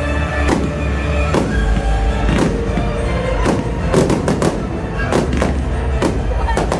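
Fireworks going off: irregular sharp bangs of launches and bursting shells, about two a second and busier from about four seconds in, over music with a steady low bass playing throughout.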